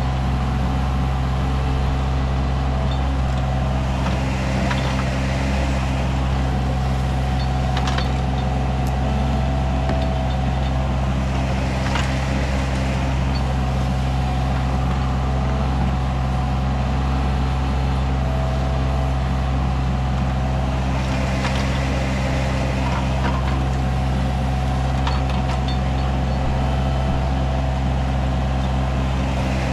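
A 6,000-lb-class diesel mini excavator's engine running at a steady, constant speed while the machine digs. A few short sharp knocks come through now and then.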